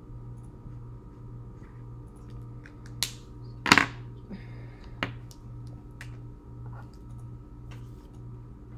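Felt-tip marker being capped and set down on a table: a few sharp clicks, the loudest a quick double click about four seconds in, over a steady low hum.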